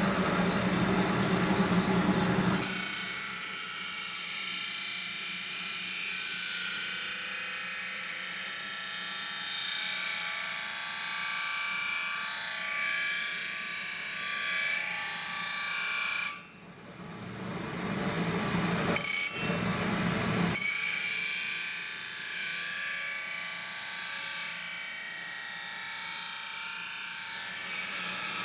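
A power tool grinding carbon steel knife blades: a steady, high-pitched grinding whine. It cuts off abruptly twice around the middle. A lower machine hum comes before it in the first couple of seconds.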